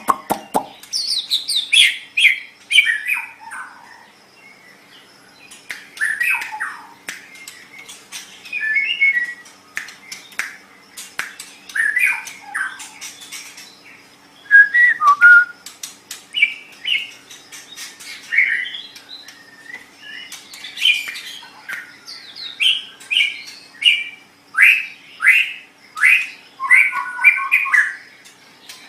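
White-rumped shama (murai batu) singing: a string of varied whistled and chattering phrases, each a second or two long with short pauses between, mixed with sharp clicking notes.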